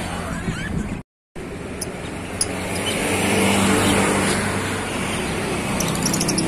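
A motor vehicle's engine humming steadily, with a swell of road noise around the middle as it passes. The sound cuts out completely for a moment about a second in.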